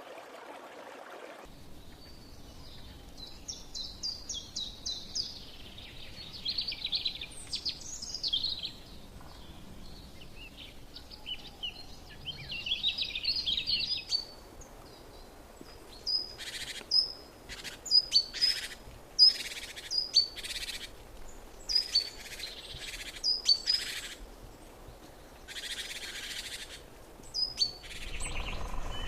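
Birds calling: a fast, chattering run of high notes in the first half, then a series of sharp, loud calls about once a second.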